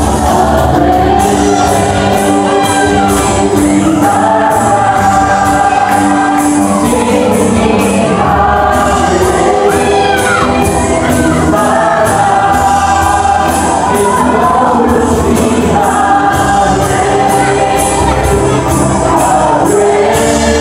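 A live worship band playing a song: several voices singing a melody over an electronic drum kit keeping a steady beat, an electric bass and an acoustic guitar.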